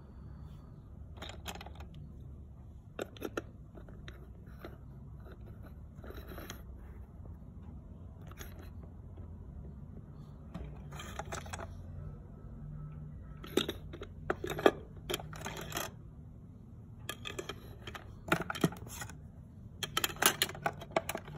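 Hard plastic toy pieces of a Peppa Pig house playset clicking and clattering as they are picked up and set down on the plastic house, in scattered bursts, busiest and loudest in the second half. A low steady hum runs underneath.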